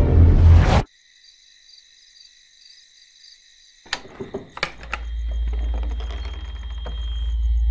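Soundtrack music cuts off under a second in, leaving crickets chirping. A few sharp clicks come about four seconds in, then a low droning hum swells beneath the crickets.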